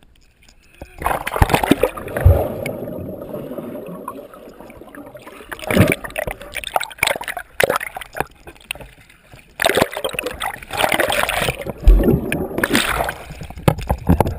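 Water splashing and sloshing around a swimmer beside a small boat, with water washing over a camera microphone held at the surface. It comes in two loud stretches, one about a second in and one past the middle.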